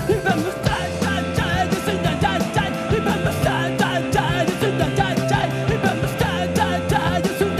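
Live rock band playing, with electric guitars, bass and steady drums, and singing over it.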